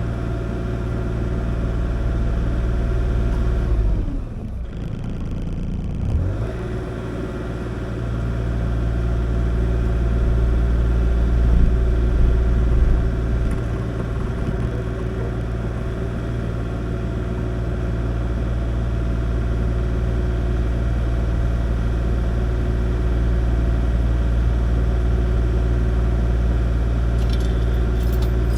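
Kubota KX040 mini excavator's diesel engine running steadily, its speed dipping briefly about four seconds in and then recovering.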